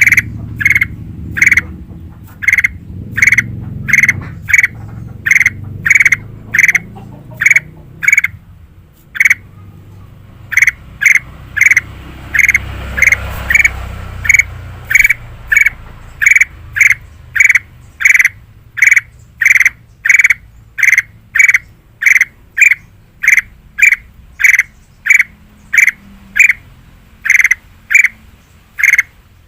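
Kutilang emas (ruby-throated bulbul) calling loud and clear, one short note repeated about twice a second, with a brief pause about a third of the way in.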